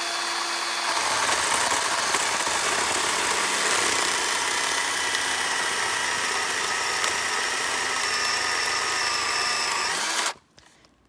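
Ryobi 18-volt brushed battery chainsaw running under load on a 4 amp-hour battery, cutting into wood, its motor whine sagging slowly lower. It stops suddenly about ten seconds in.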